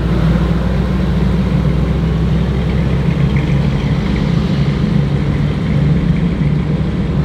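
Supercharged Ford SVT Cobra V8 in a custom Ford F100 panel truck, running steadily as the truck drives slowly away. The note holds even, with no revving.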